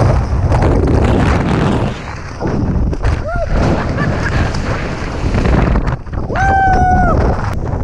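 Heavy wind buffeting a handheld camera's microphone during a tandem skydive. A short yelp about three seconds in, and a long, high whoop near the end.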